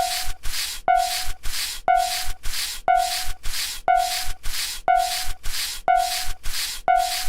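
Oddly altered level-crossing alarm: a pitched bell-like ding about once a second, alternating with scratchy swishing noise bursts about twice a second, in a steady repeating rhythm.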